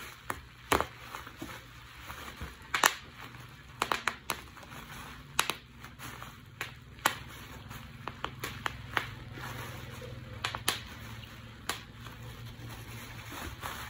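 Bubble wrap being squeezed and twisted by hand: irregular sharp pops as single bubbles burst, roughly one a second, over a steady crinkling of the plastic film.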